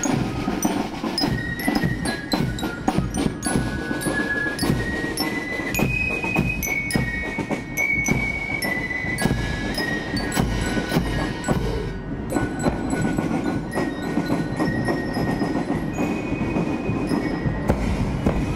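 Marching drum-and-fife corps playing a march: fifes carry a high melody over snare drums, bass drum and cymbals, with bell lyres ringing along.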